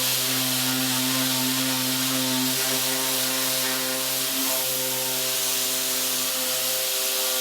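Electric sander running steadily with an even hum and a scratchy hiss, sanding a wooden pinball playfield and its raised plastic inserts flat.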